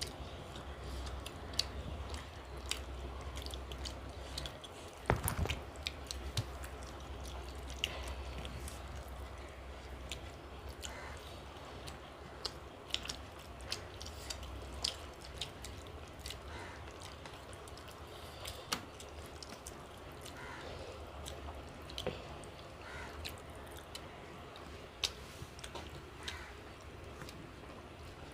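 People eating tilapia fish curry: scattered chewing and wet mouth smacks and clicks over a faint low hum.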